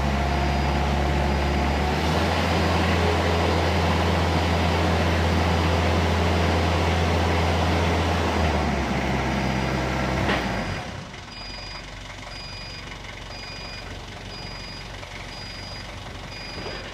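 Diesel forklift's Isuzu engine running at raised revs under hydraulic load while the bale clamp is lifted up the mast, then dropping sharply to idle with a click about ten seconds in. A warning beeper sounds about once a second throughout.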